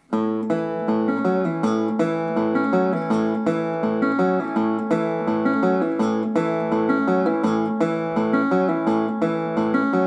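Metal-body resonator guitar fingerpicked in a steady pulse: a single note is plucked over and over in an even rhythm under the other strings. This is the "one note drive", a pulsing single note used to fill space between melody phrases in country blues.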